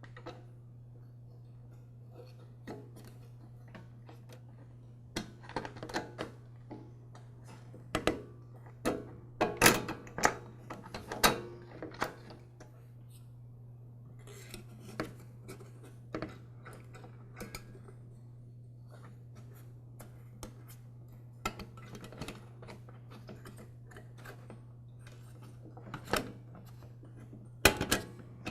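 Irregular clicks and clinks of metal and plastic parts being handled and fitted as a lawn mower's air filter base and gaskets go onto the carburetor, in two busy spells, over a steady low hum.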